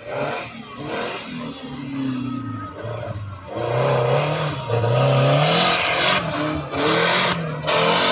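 Small 1000cc off-road 4x4's engine revving hard on a dirt course, its pitch rising and falling with the throttle. It grows louder about three and a half seconds in as the car comes closer, and a loud rushing noise joins it in the second half.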